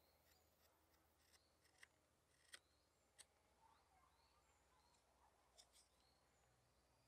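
Faint, short slicing strokes of a hook knife cutting shavings from the bowl of a wooden spoon, about half a dozen cuts at uneven intervals, with faint bird chirps behind.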